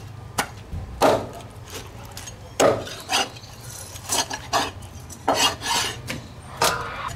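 Heavy cleaver chopping a raw plucked duck apart on a thick end-grain wooden chopping board: about ten sharp chops at an uneven pace.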